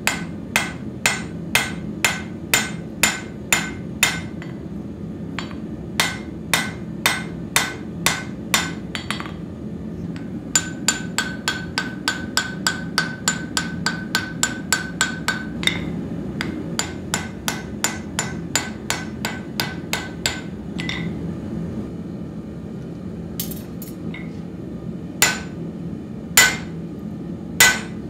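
Hammer blows on an anvil as the Finnish-style collared axe head is forged, each strike followed by the anvil's ring. The blows come in runs: about two a second at first, then a faster run of about three a second, then a few widely spaced blows near the end. A steady low background noise runs underneath.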